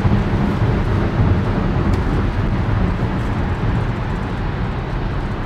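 Steady tyre and road noise inside the cabin of a KG Mobility Torres EVX electric SUV cruising at about 100–110 km/h on its stock all-season on-road tyres. There is no engine sound, only a dense low road roar with a thinner hiss above it.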